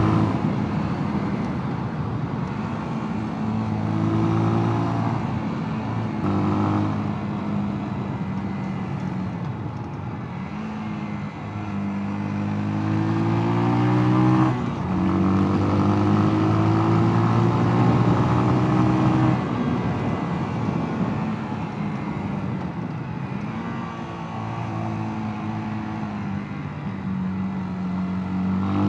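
Mash Two Fifty 250 cc single-cylinder motorcycle engine running under way, its pitch rising with the throttle and dropping abruptly at gear changes, the sharpest about halfway through.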